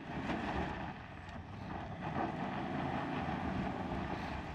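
An Ineos Grenadier 4x4's engine runs under load as it drives up a rutted dirt climb on its centre diff lock alone, with no cross-axle lockers in, and wind rumbles on the microphone.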